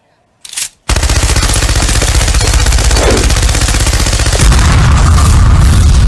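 Machine-gun fire sound effect: a short click about half a second in, then sustained rapid automatic fire from about a second in. From about four and a half seconds a heavy low rumble swells under the fire, the sound of an explosion.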